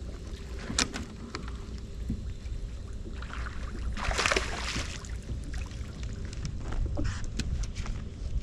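A hooked bass splashing at the water's surface beside the boat for about two seconds near the middle, over a steady low rumble. A sharp click comes about a second in, and a few more clicks and knocks near the end.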